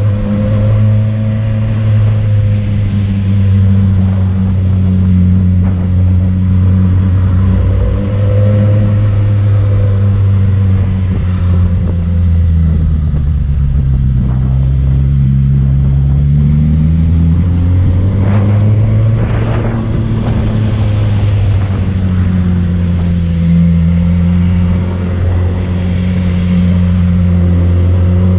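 Motorcycle engine running under way on a steep climb, its note dipping in pitch about halfway through as the bike slows and rising again as it accelerates.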